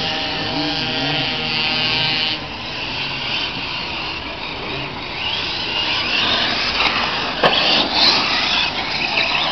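Radio-controlled touring cars racing past, their motors whining and rising and falling in pitch with the throttle. Two sharp clicks come about two seconds before the end.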